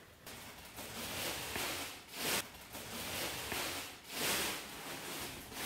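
Rustling and handling noise, with two louder swishes about two and four seconds in.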